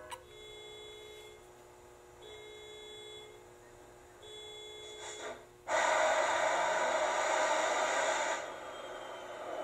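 Sound effects from a model diesel locomotive's onboard sound module, played through its small speaker and triggered from a DCC throttle. Faint repeated tones give way about six seconds in to a loud hiss lasting two to three seconds, then a quieter engine sound with a rising whine near the end.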